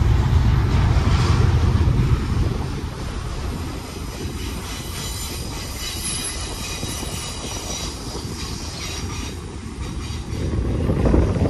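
Freight train cars rolling past on steel rails: a steady wheel rumble, loudest in the first couple of seconds, with faint high wheel squeal in the middle.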